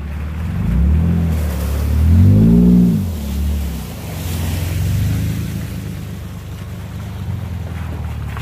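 Pickup truck engine revving up and back down twice over a steady rumble, the second rev higher and louder, with wind noise on the microphone.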